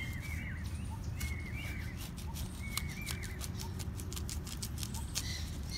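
A knife cutting down through a whole elephant foot yam, giving irregular sharp clicks and crackles as the blade works through the hard corm. A bird repeats a short two-note chirp about every second and a half.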